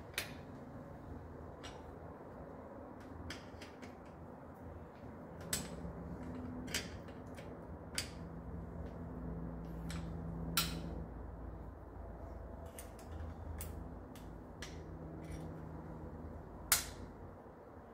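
Scattered sharp metal clicks and taps as bicycle rim-brake parts are handled and fitted by hand, the loudest click near the end, over a low steady hum.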